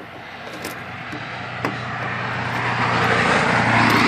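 A motor vehicle's noise swells steadily to a peak near the end, like a vehicle driving past, over a steady low engine hum. A single small click about a second and a half in.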